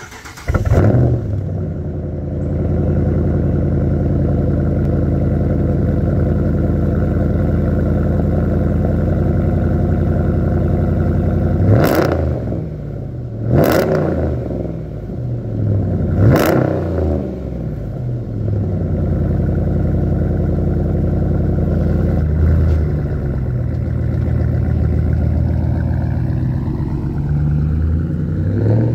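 2014 Ram 1500's 5.7-litre Hemi V8 with its mufflers deleted, firing up with a brief loud flare, then idling steadily. It is blipped three times in quick succession around the middle and once more lightly, then pulls away near the end with the engine note rising.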